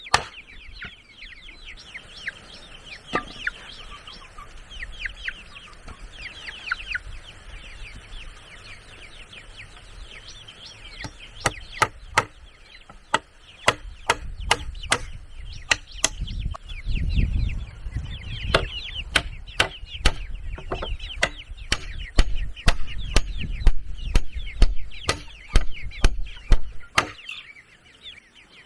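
Repeated sharp blows on wood, a few at first and then coming thick and fast from about eleven seconds in, with a low rumble of handling under them, while chickens cluck and cheep.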